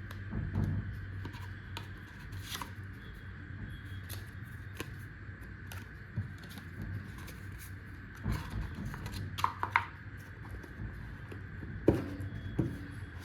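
Packaging being handled during a watch unboxing: scattered clicks and short rustles, the sharpest about twelve seconds in, over a steady background hum.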